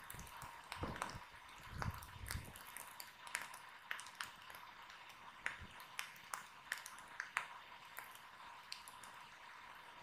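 Wood fire crackling: irregular sharp pops and snaps, with a few low thuds in the first couple of seconds.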